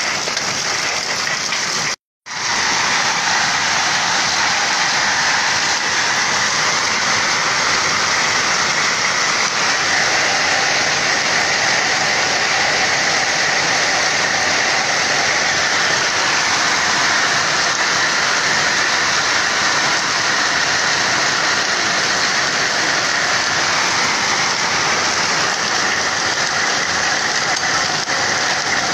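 Heavy hail pelting down on grass and hard ground: a dense, steady roar of hailstones. The sound cuts out for a split second about two seconds in.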